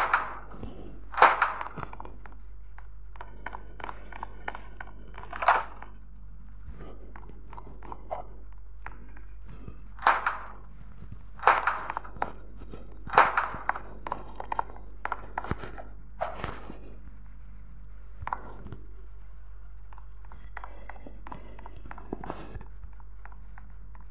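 Irregular knocks, thuds and clicks, with about seven louder ones spread through, over a steady low hum.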